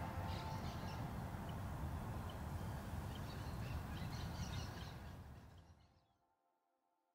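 Faint outdoor ambience: a low steady rumble with scattered short bird chirps, fading out to silence about six seconds in.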